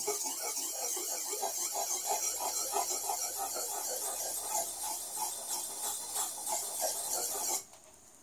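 Steel kitchen cleaver's edge being ground on a sharpening stone in quick small circles, a steady rasping scrape with an even stroke rhythm. The stone is taking metal off fast to re-form a badly worn edge. The scraping stops abruptly near the end.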